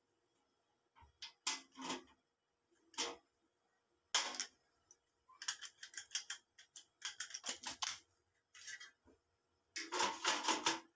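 Scattered metallic clicks and clatters of tools and parts being handled, then a quick cluster of metal knocks near the end as a cast-iron burner grate is set onto the stove's sheet-metal top.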